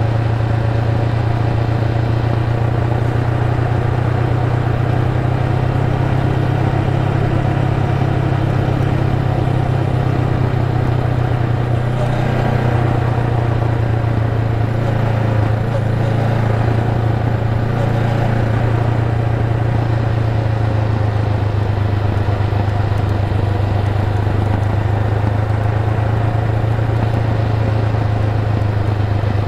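Honda Rebel 500's parallel-twin engine running at a steady cruise while the motorcycle rides along, heard from the rider's position with no change in pitch or level.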